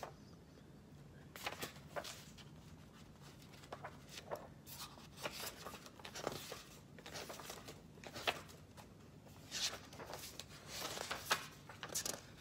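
Pages of a paper book being flipped and turned by hand: an irregular string of soft paper rustles and flicks.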